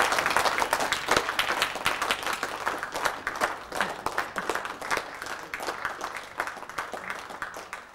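Audience applauding, loud at first and gradually dying away.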